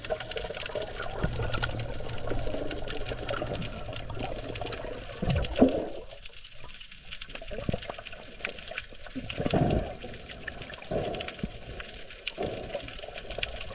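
Muffled water movement and gurgling picked up by a GoPro action camera held underwater, with louder gurgles about five and a half and nine and a half seconds in.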